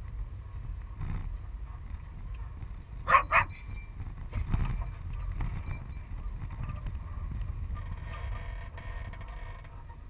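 Steady low rumble of a van driving, heard inside its cab. About three seconds in, two short, sharp, loud sounds come in quick succession.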